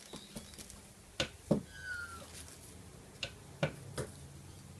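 Aluminium top-mount intercooler being set down onto the engine, knocking and clunking against its brackets and fittings: about five sharp knocks, the loudest about a second and a half in. A short, slightly falling high chirp follows that loudest knock.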